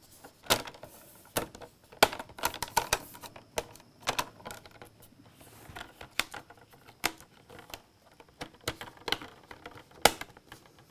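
Plastic screen bezel of an HP EliteBook 8540w being pressed onto the display lid by hand: a string of irregular sharp plastic clicks and snaps as it seats around the edges.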